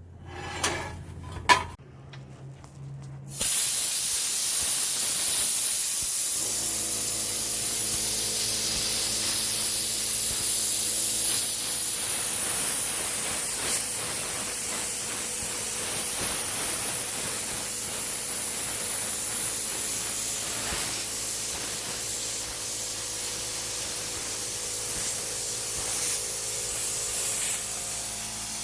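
Plasma cutter torch running with a loud, steady hiss of air and arc, starting about three seconds in after a couple of sharp metal clinks. A few seconds later a steady machine hum joins it and runs under the hiss.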